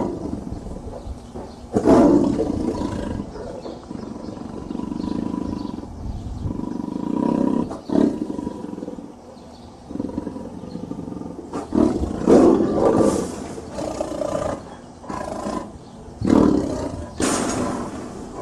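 Tigers roaring and growling: a loud roar right at the start and another about two seconds in, lower rumbling growls through the middle, and a cluster of loud roars near the end.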